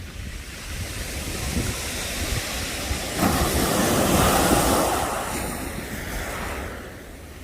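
Sea waves breaking on the shore: one wave swells about three seconds in and washes out again, with wind rumbling on the microphone throughout.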